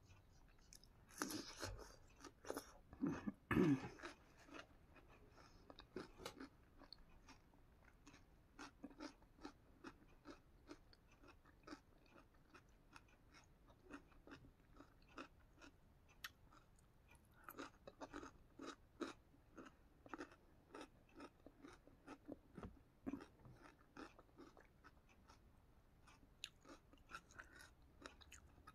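A person biting and chewing crunchy food, crisps and raw carrot, close to the microphone: a run of loud bites about one to four seconds in, then steady crunching chews throughout.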